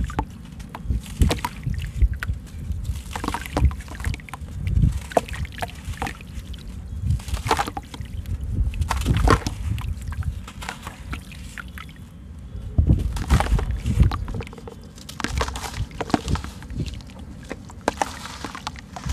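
Soft sand-cement chunks crumbled by hand over a tub of water: irregular crunching crackles as the chunks break, with the loose sand splashing into the water and water sloshing around the hands.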